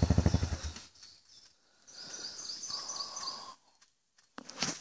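A motorcycle engine running with an even pulsing beat, fading out within the first second. Then a bird sings a short phrase of about six quick high notes for a second and a half, and a burst of noise starts near the end.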